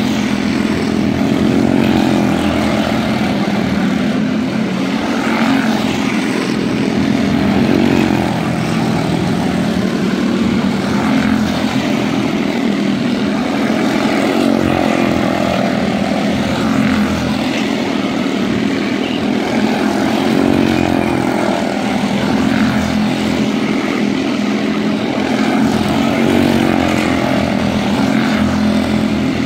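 Junior Honda quarter midget race cars with small single-cylinder Honda engines running flat out in a heat race. Their buzzing engine note swells and fades every few seconds as the cars come round the small oval and pass by.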